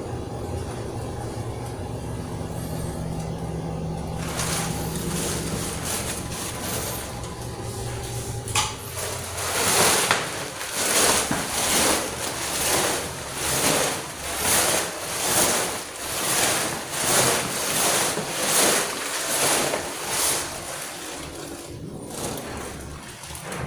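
Footsteps going up tiled stairs, a regular scuffing step about once a second for some twelve seconds. Before them there is a steady low hum.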